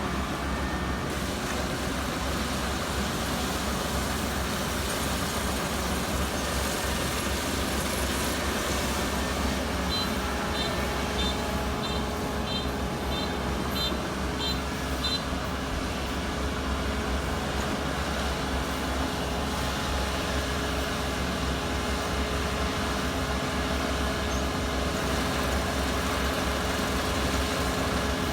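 Kubota ER470 combine harvester running steadily with a low engine hum and machinery noise. From about a third of the way in, a string of short, high electronic beeps sounds at about two a second for roughly five seconds.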